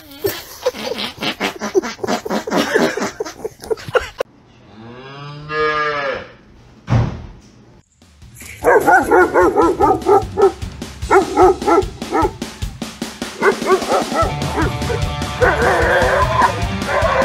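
Dogs barking and vocalizing, with one long call that rises and falls in pitch about five seconds in. Music plays through the later part.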